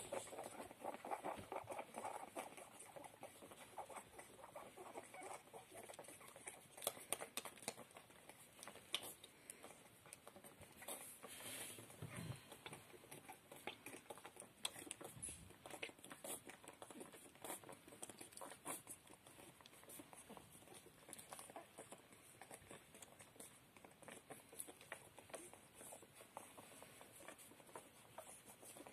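Puppies suckling at their mother: faint, irregular wet smacking and clicking sounds from their mouths as they nurse.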